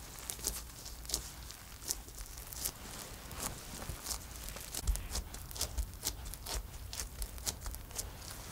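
Buttery dough being pressed and flattened by hand in disposable gloves: irregular sticky clicks and crackles of the gloves against the wet dough, with a few low thumps on the table about halfway through.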